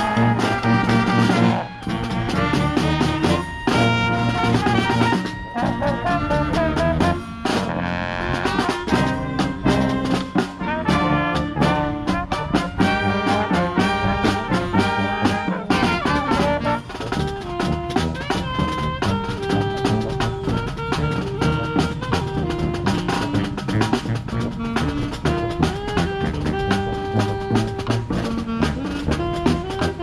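Street brass band playing a tune live: trombones and trumpets over a driving beat of marching drums.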